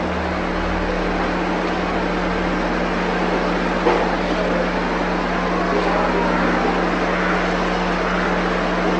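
Steady hiss with a constant low hum, the noise floor of an old film soundtrack, with a brief click about four seconds in.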